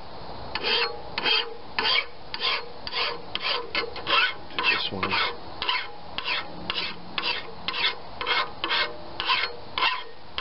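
Hand file rasping in repeated strokes, about two a second, across the edge of a spring-steel lawn mower blade, sharpening the cutting edge.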